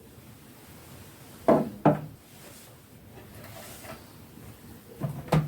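Soft knocks in two pairs, one pair about a second and a half in and another near the end, like objects being handled and set down on a wooden surface.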